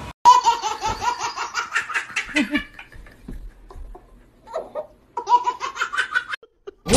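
A baby laughing hard in quick, repeated high-pitched peals. It stops for a couple of seconds and starts again about five seconds in.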